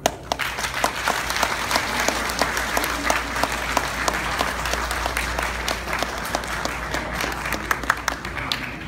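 Audience applauding: a dense patter of hand claps that starts suddenly and dies away near the end.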